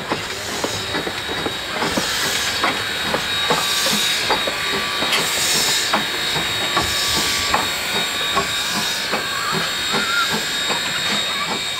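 Steam locomotive PB15 448 running past: steam exhaust hissing in pulses about once a second, over a steady run of sharp clicks and knocks from the wheels on the track. It grows louder about two seconds in and eases slightly near the end.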